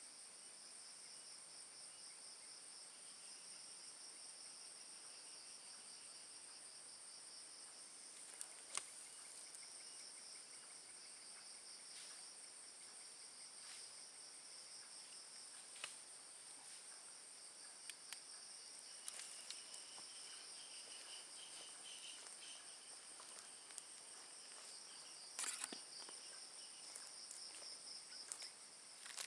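Faint chorus of night insects: two steady, high-pitched, finely pulsing trills that run on unbroken, joined by a lower trill for a few seconds past the middle. A few sharp clicks and knocks are scattered through it, the loudest near the end.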